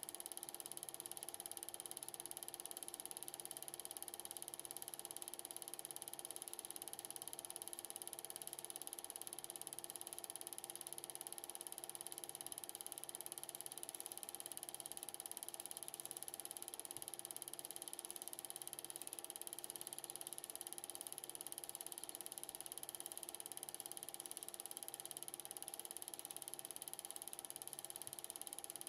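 8mm film projector running: a steady mechanical whir made of several constant tones, with a faint low pulse about once a second.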